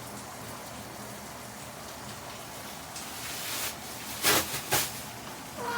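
Steady sizzling hiss of food cooking in a hot pan. A louder rush of noise comes about three seconds in, then two short sharp noises half a second apart.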